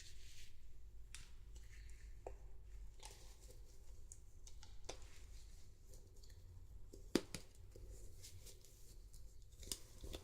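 Faint handling of a doll and its packaging: soft rustling with scattered small clicks, and one sharper click about seven seconds in.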